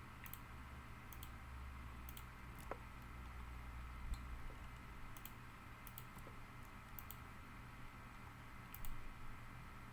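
Scattered clicks from a computer mouse and keyboard, about a dozen spread irregularly, over a steady low hum.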